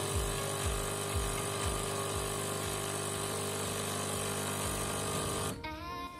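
Automatic espresso machine running, its pump whirring as it pours espresso through a glass of frothed milk, with a steady low thump about twice a second. The sound cuts off suddenly near the end.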